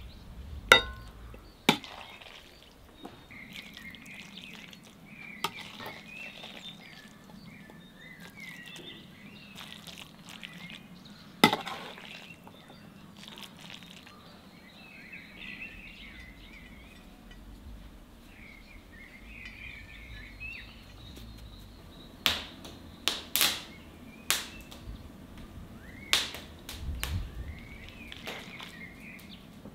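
Small birds chirping in short repeated phrases in the background, with a few sharp knocks: two in the first two seconds, one at about eleven seconds, and a cluster of several near the end.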